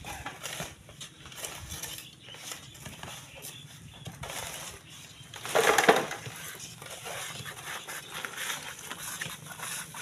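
Manual sand-mining work: iron bars prying and scraping at sand and gravel, with stones clattering irregularly. About six seconds in there is one louder crunching clatter.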